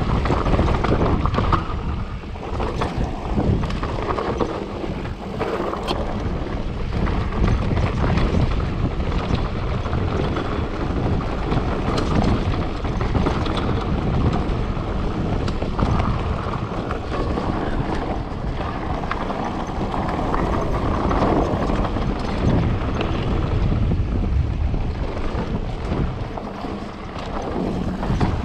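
Wind buffeting the microphone and tyres rumbling over a rough trail while riding a mountain bike at speed, with frequent small clicks and rattles.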